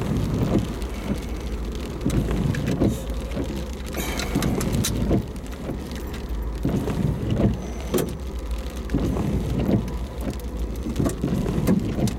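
Storm wind and rain buffeting a car, heard from inside the cabin as a steady low rumble and hiss, with scattered short knocks and rustles throughout.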